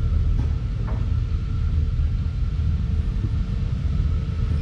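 Off-road 4x4's engine running at low speed on a rocky trail: a steady low rumble with a faint constant whine over it.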